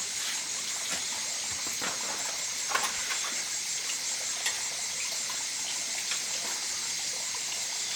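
Steady hiss of a cooking pot of liquid boiling, with a few faint clicks.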